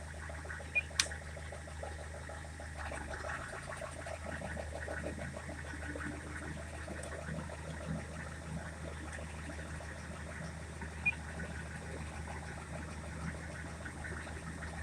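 Rover 75 engine idling under the open bonnet with the air conditioning on, with a steady light rapid tapping over the engine hum. The tapping appears at idle when the air-con compressor or the power steering loads the engine, and its cause is unknown to the owner. There is a single sharp click about a second in.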